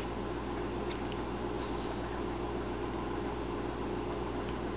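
A steady low hum of room noise, with a few faint ticks of a small carving knife cutting into a wooden figure being whittled by hand.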